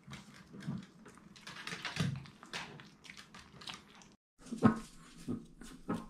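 Small Maltese dogs moving about on a wooden floor, claws ticking in many quick light taps, with a few brief low whines. About two-thirds through there is one louder short sound.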